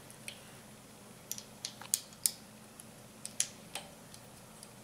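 Irregular sharp metallic clicks and taps, about eight of them, as a pushrod tube clip install tool and the steel retaining clip are worked into place on a Harley-Davidson pushrod tube.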